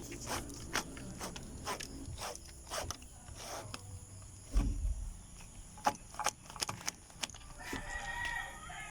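Scattered clicks and knocks of electrical wire and tools being handled while the wire is measured out, with a low thump about halfway through. A rooster crows in the background near the end.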